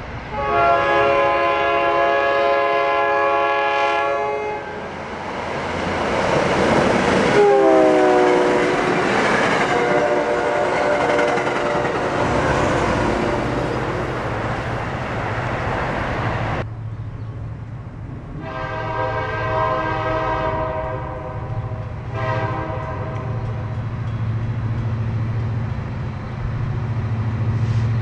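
A commuter train's multi-note horn sounds a long blast as it approaches, then sounds again as the train passes, its pitch dropping sharply, over the loud rush of wheels on rail. After a sudden cut, another locomotive's horn sounds one long and one short blast over a low steady engine hum as a second train approaches.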